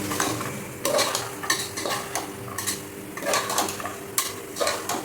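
Metal spoon stirring spice powders into a frying onion-tomato masala in a pressure cooker pot, with irregular scrapes and clinks against the pan.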